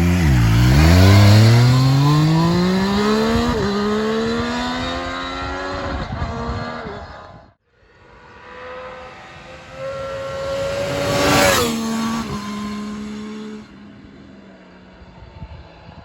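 Triumph Street Triple 765 RS's 765 cc inline-three engine accelerating hard, its pitch climbing steadily with a brief step at a gear change about three and a half seconds in. After a sudden cut, the bike comes by again, loudest about eleven seconds in, its pitch dropping as it passes, then fading away.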